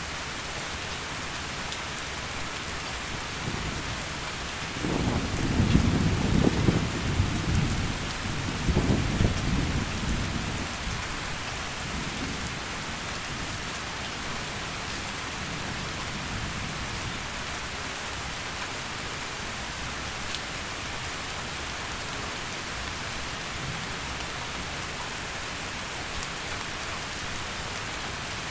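Heavy rain falling steadily, with a roll of thunder rumbling from about five seconds in, loudest around six to nine seconds, then dying away under the rain.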